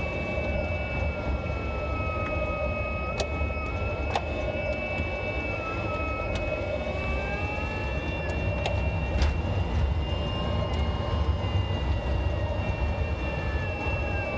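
Nissan Leaf's EM57 electric motor and reduction gear whining while driving, the whine slowly rising and falling in pitch with speed over a steady low road rumble. A few sharp knocks come through, about four, knocks the owner suspects are from worn motor or gearbox mounts.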